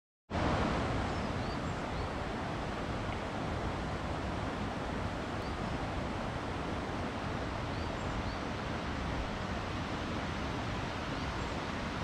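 Steady rushing of a flowing river, with a few faint, short high chirps over it.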